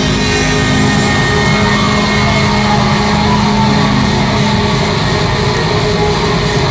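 Live deathcore band playing at full volume: heavily distorted guitars holding low, ringing chords over drums. The sound is dense and saturated, like an overloaded audience recording.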